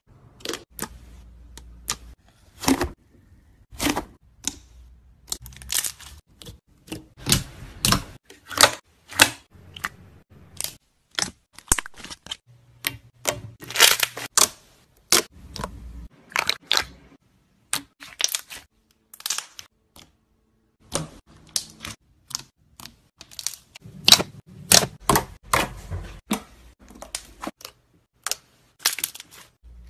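Hands pressing, squeezing and poking soft slime, giving many short, sharp pops and clicks at an irregular pace, some coming in quick clusters.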